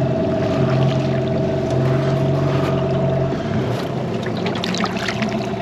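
Outboard motor of a small boat running steadily over water noise, its pitch shifting slightly about three seconds in.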